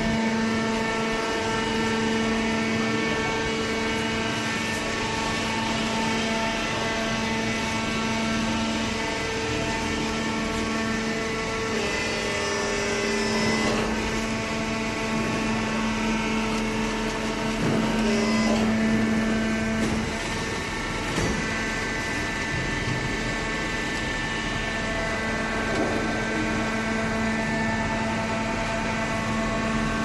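Vertical hydraulic baler's electric motor and hydraulic pump running with a steady hum, shifting a little in tone for a few seconds around the middle.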